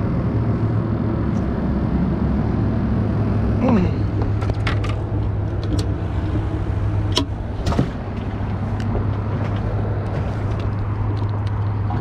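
A steady low hum, with a few sharp knocks and clicks in the middle as a caught speckled trout is handled.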